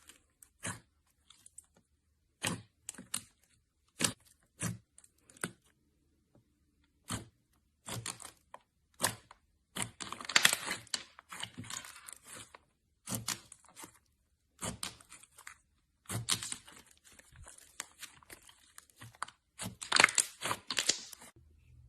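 Slime being pressed and stretched by hand, giving irregular sticky pops and crackles with short silences between them and denser crackling runs around ten and twenty seconds in.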